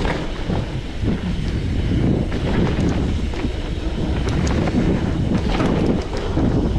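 Mountain bike riding over a dirt trail, heard from the bike or rider: a constant low wind rumble on the microphone, with frequent small rattles and knocks as the bike goes over bumps.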